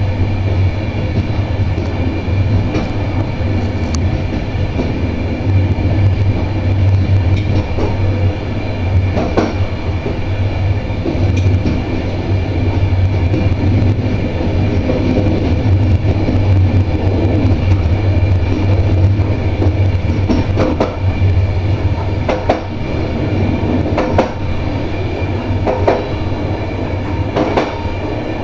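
A train running at speed, heard from the driver's cab of an electric locomotive: a steady low hum under the rumble of wheels on rail. A few sharp clicks from the wheels over the track come in the second half.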